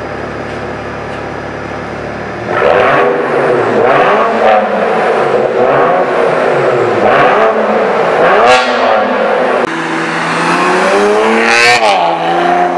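BMW 335i's turbocharged straight-six through a modified exhaust (3-inch VRSF downpipes, resonators, PE muffler mod) idling, then revved hard several times from about two and a half seconds in, echoing off the concrete of a parking garage. From about ten seconds in the car is heard driving, its revs rising once near the end.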